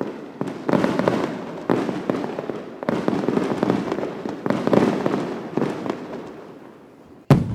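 Aerial fireworks going off in quick succession: crackling reports restarting about once a second and dying away, then a single sharp bang near the end.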